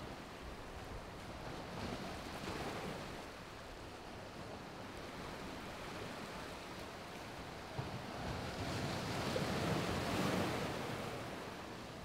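Ocean surf breaking and washing up a sandy beach, a steady rush of water that swells louder as a wave comes in toward the end.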